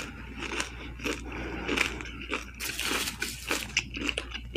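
Close-miked chewing of a mouthful of toast with egg and bacon, mouth closed: irregular soft crunches and wet mouth clicks.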